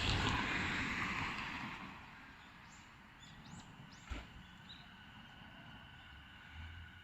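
Train on the Ome Line passing over the level crossing, its rail noise loudest at the start and dying away over the first two seconds. After that there are a few faint bird chirps and a single click about four seconds in.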